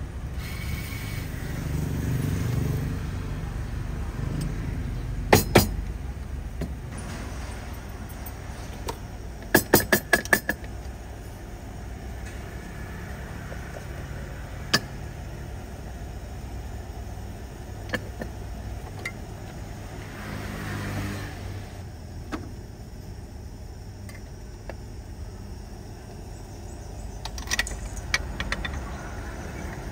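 Metal espresso tools clicking and knocking as a shot is prepared by hand: portafilter, distribution tool and tamper against a wooden tamping stand, and a lever espresso press. There are two sharp knocks about five seconds in, a quick run of four about ten seconds in, scattered single clicks, and a cluster near the end, all over a steady low background rumble.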